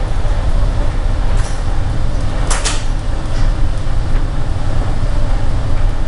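Storm wind buffeting the microphone as a heavy, fluctuating rumble under a steady rushing noise, with a brief louder hiss about two and a half seconds in.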